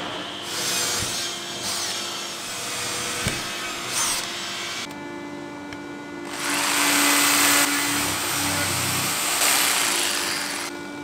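Power tools working wood in a series of short clips: a motor running steadily under load while it cuts or drills.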